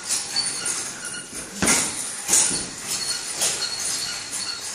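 A few separate thuds, roughly a second apart, the one near the middle loudest, over the steady background noise of a large hall.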